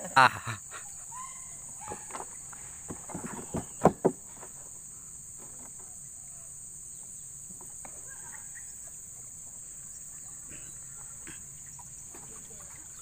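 Steady high insect drone, with brief voices at the start and a couple of sharp knocks about four seconds in.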